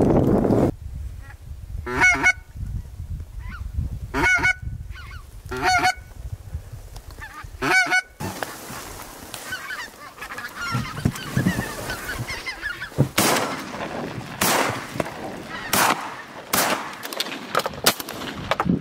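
Geese honking: single calls spaced about two seconds apart, then a denser stretch of overlapping honks with several sharp knocks near the end.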